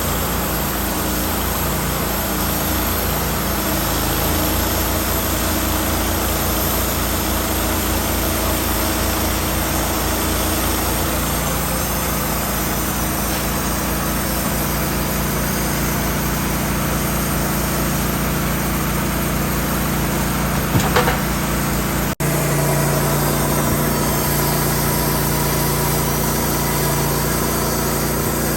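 An engine running steadily. There is a brief clatter of clicks about three-quarters of the way through, then an abrupt break, after which the engine note is slightly lower and stronger.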